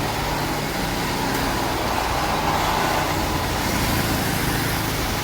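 Truck engine running with road noise, a steady sound with no clear change.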